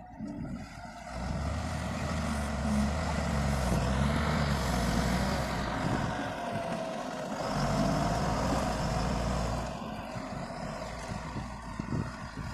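Diesel engine of a heavy road-construction machine running under load, swelling about a second in, dipping briefly midway and easing off near the end.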